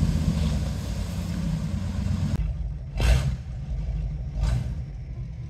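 Chevrolet C/K 1500 pickup engine running as the truck pushes through a shallow creek, with water washing around it and the engine note easing off from a rev. After an abrupt change, a low steady engine rumble remains, with two brief rushes of noise.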